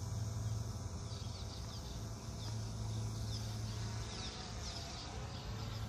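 Steady buzzing hum of a quadcopter drone's motors and propellers, with short high bird chirps repeating from about a second in.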